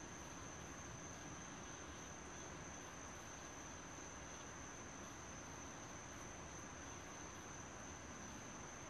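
Crickets trilling in a faint, steady, high-pitched night chorus, over a low background hiss.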